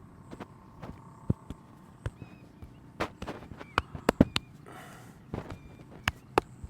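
Hands striking a person's head and back during a massage: irregular sharp slaps and claps, the loudest cluster around the middle, with a brief rubbing sound about four and a half seconds in.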